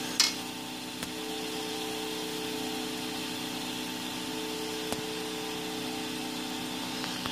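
Steady hum of a 3D printer's hot end and extruder at work, from the small heatsink cooling fan and the extruder stepper motor, as ABS is pushed through the all-metal nozzle. A brief sharp sound comes just after the start, and faint ticks come now and then.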